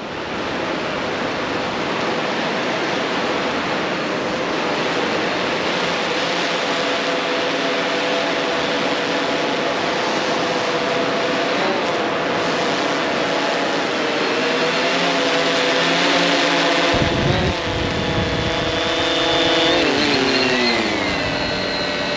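A quadcopter fishing drone's rotors whining overhead, a hum of several tones that grows as the drone comes in and hovers close. About three quarters through, a heavy rush of prop wash hits the microphone, and near the end the motors' pitch glides down as the drone is lowered into a hand.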